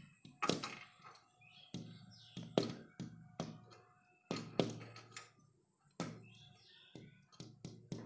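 A dozen or so sharp taps and thunks at irregular intervals, each with a short low ring, with a few faint chirps between them.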